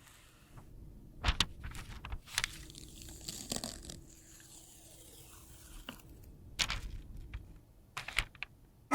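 Scattered sharp taps and clicks with a stretch of light scraping, from makeup products being handled and worked with small tools.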